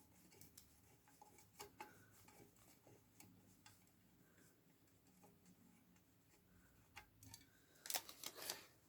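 Near silence with faint scattered clicks and ticks of small parts being handled while a transformer is taken apart, and a quick run of louder clicks near the end.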